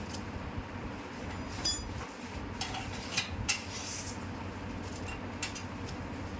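Metal clinks and taps of a multi-spanner working on the bicycle's front axle nuts and basket and mudguard fittings: a handful of separate clinks, one with a short metallic ring about a second and a half in. A steady low hum runs underneath.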